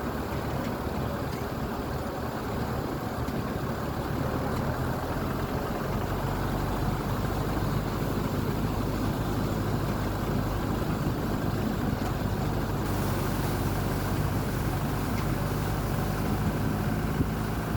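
Engine running steadily with a low hum that grows louder about six seconds in.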